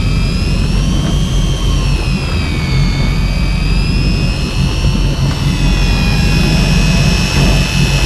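Electric fishing reel motor whining as it winds a hooked fish up from deep water, its pitch sagging and rising again with the load, over a steady low rumble.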